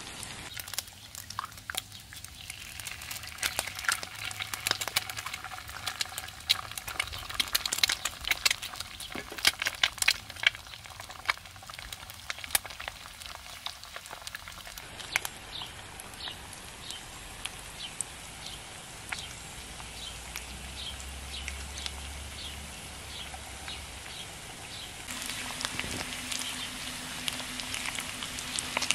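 Rain pattering on a tarp shelter: a dense, irregular crackle of drops. About halfway through it thins to a softer hiss with a run of evenly spaced ticks.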